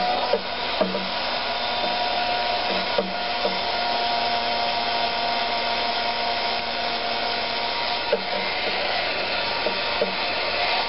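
Embossing heat gun switched on and blowing steadily: an even rush of hot air over a steady motor whine. A few light knocks sound as things on the desk are handled.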